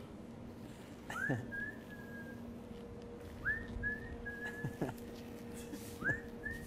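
Whistling: a short phrase of a rising swoop followed by a few held notes, repeated three times, over a steady low hum.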